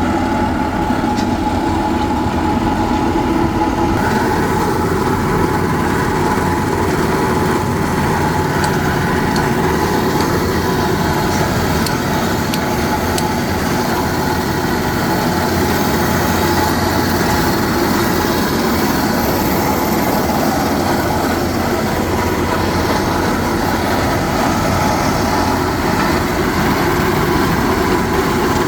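Hydraulic rock drill hammering steadily into rock with its engine running, a continuous, loud, rapid percussive rattle drilling holes for rock splitting.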